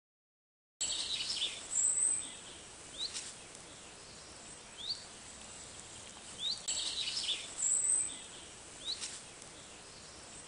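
Outdoor ambience of small birds chirping: short rising chirps every couple of seconds and a thin high note over a steady hiss, starting abruptly about a second in. The same few seconds of birdsong repeat about every six seconds, as a looped background track.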